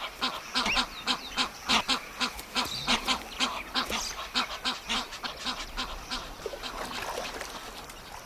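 Egyptian goose honking in a rapid run of hoarse calls, about four a second, fading away near the end: the victory calls of a male after a territorial fight.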